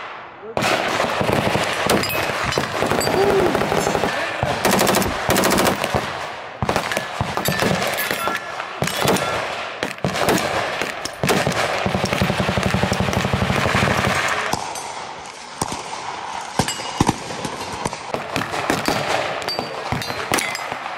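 AR-style rifles and pistols firing: loud, sharp gunshots in fast strings, one after another.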